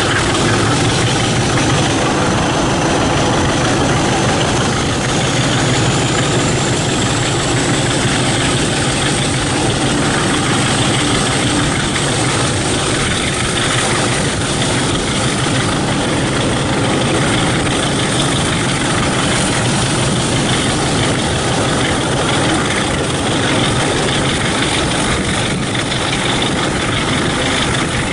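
Diesel locomotive engine running steadily under power as the train moves, mixed with wheel and rail noise and wind, heard from an open coach window. A faint high whine rises slowly in pitch during the first several seconds.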